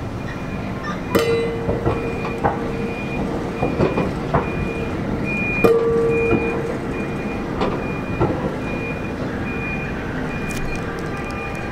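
Steel wheels of a Kawasaki R211 subway car rolling slowly over street-embedded rail, with scattered clicks and knocks and two short wheel squeals, about a second in and near the middle. A backup alarm beeps steadily, about two beeps a second.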